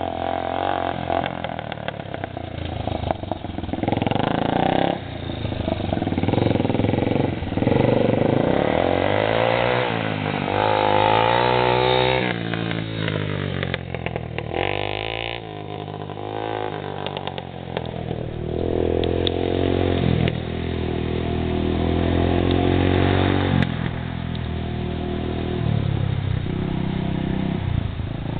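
Yamaha TT-R225 dirt bike's air-cooled single-cylinder four-stroke engine revving up and down as it is ridden, its pitch rising and falling again and again with the throttle.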